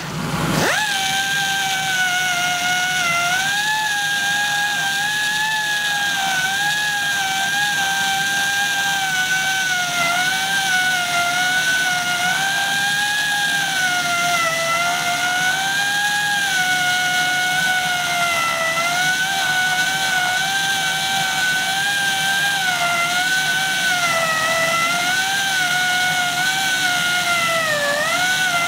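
Central Pneumatic air die grinder with a Kutzall sphere burr spinning up, then a loud, steady high whine. The pitch sags and recovers again and again as the burr is pressed into the wood, carving out a spoon bowl, with the deepest dip near the end.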